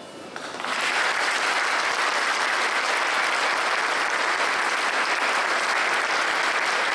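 Crowd applauding: clapping breaks out about half a second in and holds steady.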